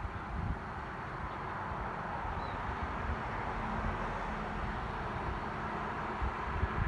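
A vehicle's engine running steadily, a faint steady tone joining about two and a half seconds in, over low rumble and wind on the microphone.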